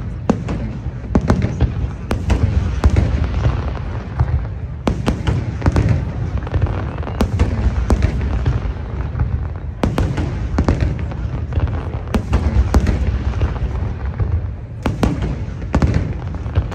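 Fireworks display bursting in rapid succession: many sharp cracks and pops over a constant low rumble of shell bursts.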